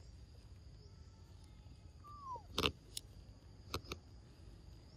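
A short falling animal call about two seconds in, followed by a few sharp clicks, over a faint steady insect hum.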